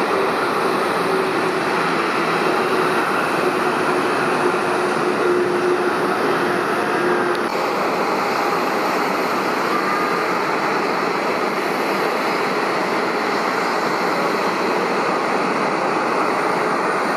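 Jet airliner engine noise during a landing: a steady, loud rush with a faint held hum. The sound changes abruptly about seven seconds in.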